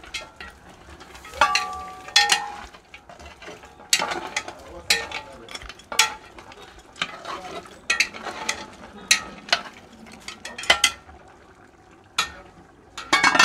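Metal spoon or ladle stirring a large steaming aluminium pot of soup, with irregular clanks and scrapes against the pot and some brief metallic ringing. The aluminium lid is handled, with the loudest clatter near the end as it goes back on.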